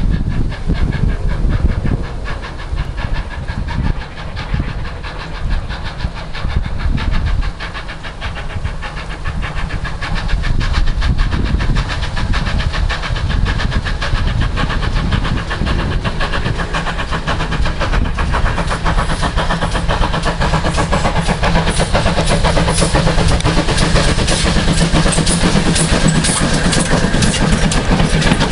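A train running along the line, its wheels clattering over the rail joints, getting louder in the second half as it comes closer.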